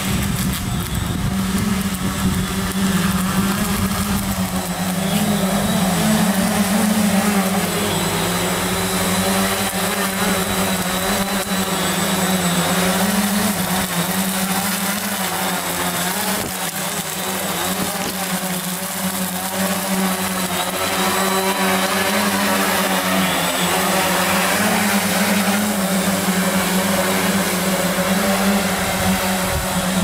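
Rotors of a SONGBIRD VTOL drone lifting off and hovering: a steady buzzing hum whose pitch wavers slightly as the rotors adjust.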